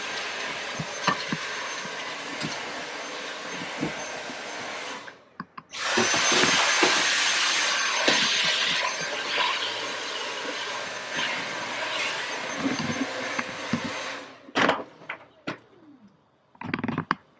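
Vacuum cleaner running with a high whistle while sucking dust and debris from a water heater's vents; it shuts off about five seconds in, starts again a moment later with a rising whine, and shuts off again about fourteen seconds in. A few knocks and clatters follow.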